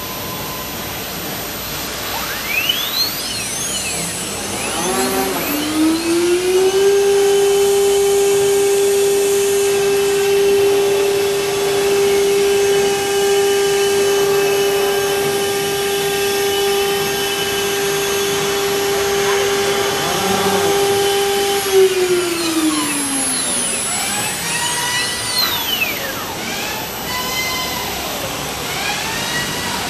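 ATC CNC router spindle whining while routing a wooden cabinet-door panel: it winds up in pitch a few seconds in, holds a steady high whine, and winds down about twenty seconds later. Higher whines sweep up and down around it near the start and the end.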